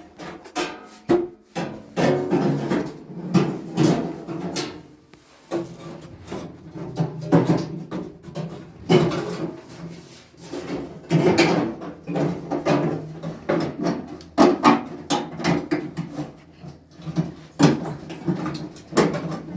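Irregular knocking, scraping and rubbing, as of hands handling and fitting hard parts, with sharp knocks every second or so.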